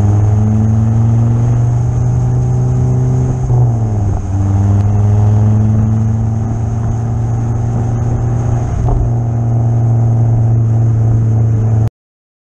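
Ford Focus ST225's turbocharged 2.5-litre five-cylinder engine running hard under load on track, with a steady note whose pitch dips briefly about three and a half seconds in before pulling again. The sound cuts off abruptly just before the end.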